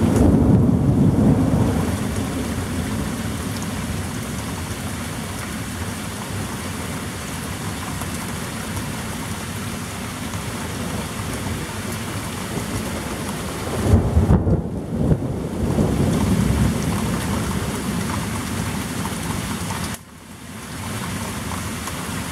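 Steady heavy rain during a thunderstorm, with thunder rumbling at the start and again about two-thirds of the way through. The rain drops off abruptly for a moment near the end.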